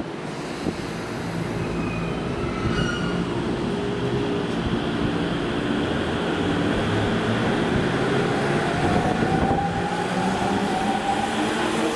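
Electric commuter train running through the station with a steady rumble of wheels on rail. In the last few seconds a motor whine rises slowly in pitch as the train gathers speed.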